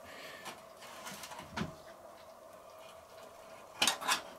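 Faint metallic clicks and scrapes of pliers working the rotisserie spit's fork clamp free of the roast goose, with a low knock about a second and a half in and a sharper cluster of clicks near the end, over a faint steady hum.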